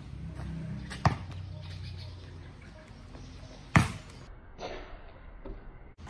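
Basketball bouncing on a concrete court: two sharp bounces, about a second in and again just before four seconds, over a low steady background rumble.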